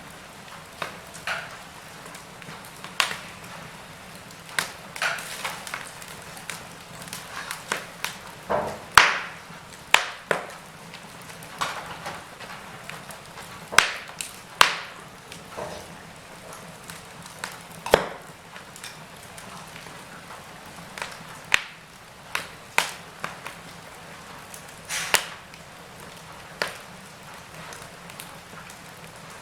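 Wood fire burning in a fireplace: irregular crackles and sharp pops over a soft, steady hiss of flames.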